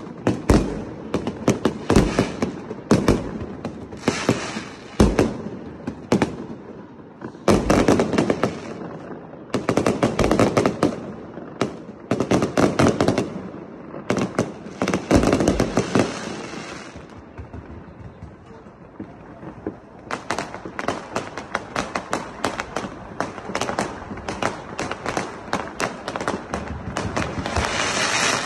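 Aerial fireworks going off in quick succession: loud bangs with dense, rapid crackling from the bursting shells. The bursts ease into a short lull a little past halfway, then resume and build toward the end.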